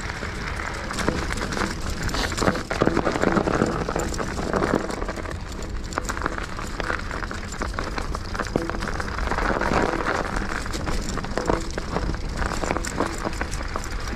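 Mountain bike on 2.8-inch plus tyres rolling over a snowy dirt trail: a steady crackling crunch under the tyres, with frequent small knocks and rattles from the bike over the bumps.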